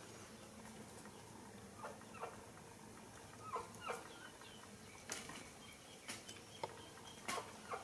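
Faint short animal calls, each falling in pitch, come in two pairs about two and four seconds in. They are followed by a few sharp clicks in the second half.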